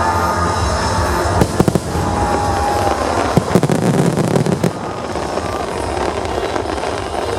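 Aerial fireworks exploding over music: a quick string of sharp bangs about a second and a half in, then a denser run of bangs and crackling from about three and a half to nearly five seconds in.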